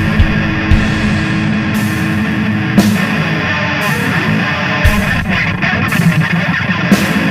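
Heavy-metal band recording: distorted electric guitar over a drum kit, with kick-drum thumps and repeated cymbal crashes.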